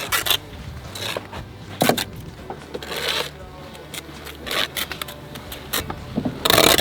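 Bricklaying sounds: a trowel scraping mortar and knocking on bricks in short, scattered strokes, about one a second, with the loudest scrape near the end.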